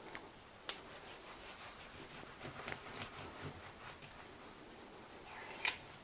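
Kitchen knife cutting into a pike tail on a wooden cutting board while filleting it. Faint scraping and slicing with small scattered clicks, a sharp click under a second in and a louder knock near the end.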